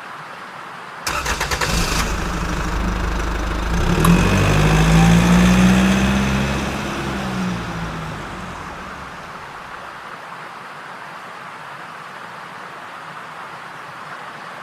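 An engine starts with a rapid clatter about a second in, then runs louder with its pitch rising and falling for a few seconds before fading away.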